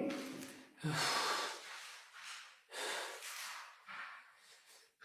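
A man breathing heavily, several loud breaths in and out, from someone who says he feels dizzy.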